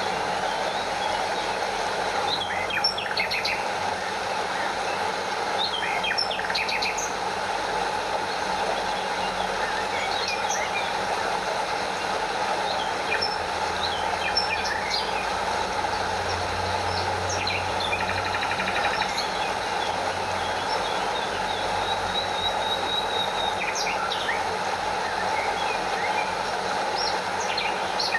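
Stream running steadily over a small waterfall, a continuous rush of water, with birds chirping intermittently above it.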